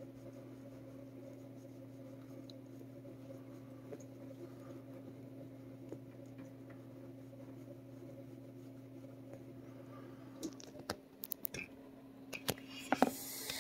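Steady low electrical hum in a quiet small room, with faint scattered ticks. Near the end come a few sharp knocks and a short burst of rustling: handling noise as the camera moves.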